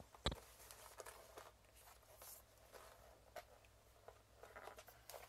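Mostly near silence, with faint handling noises from a cardboard laptop box being turned over in the hands: one soft knock about a quarter of a second in, then light scrapes and taps.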